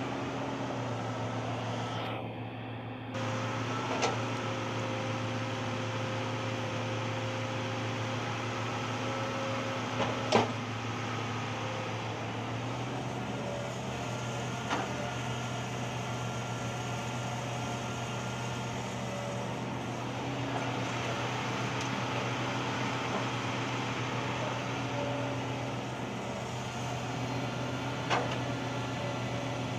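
Hitachi ZAXIS hydraulic excavator's diesel engine running with a steady hum and a thin whine, while it digs and loads earth. A few sharp knocks stand out, the loudest about ten seconds in.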